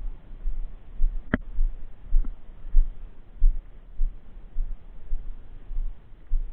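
Wind buffeting the microphone in irregular low thumps and rumble, with one sharp click about a second and a half in.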